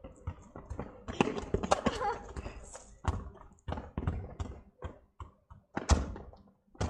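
Irregular thuds and taps of a football being kicked and bounced on tarmac, with a sharper knock about six seconds in.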